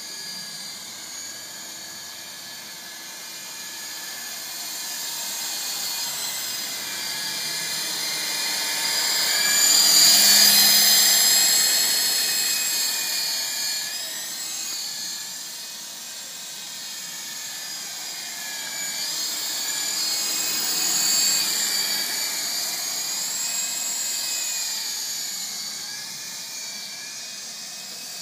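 Syma S33 coaxial RC helicopter's electric motors and rotors whining in flight, the pitch wavering up and down with the throttle. It swells to its loudest about ten seconds in, fades, then swells again around twenty seconds.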